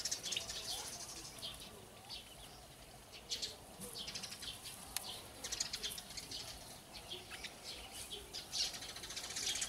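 Turkey poults peeping: short, high-pitched chirps coming irregularly throughout.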